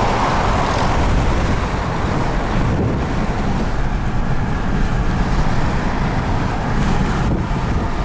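Steady road and wind noise of a car driving at freeway speed, heard from inside the cabin.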